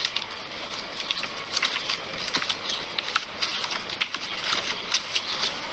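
Irregular light clicks and taps, several a second and uneven in spacing, over faint rustling.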